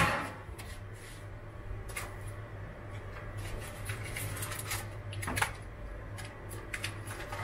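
Scattered light clicks and knocks from someone working at a stainless-steel kitchen counter, over a steady low hum. The knocks come about two seconds in, in a small cluster a little past halfway, with the loudest among them, and once more near the end.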